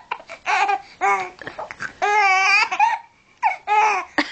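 Four-month-old baby laughing in high, squealing bursts, with a longer squeal about two seconds in.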